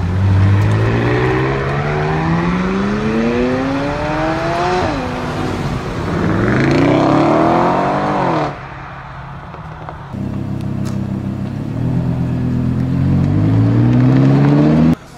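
Supercar engines accelerating hard as the cars pass, beginning with a McLaren 600LT. The revs climb through a gear and drop at a shift about five seconds in, then rise steeply again. After a short, quieter stretch, another long rising run of revs builds near the end.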